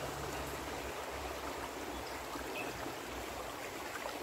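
Shallow rocky stream running steadily over stones.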